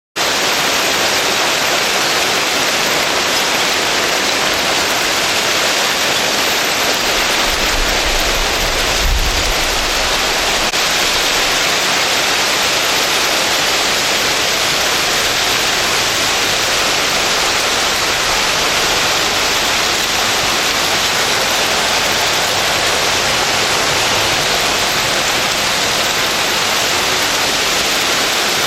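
Hail coming down hard in a steady, dense hiss. A brief low thump comes about nine seconds in.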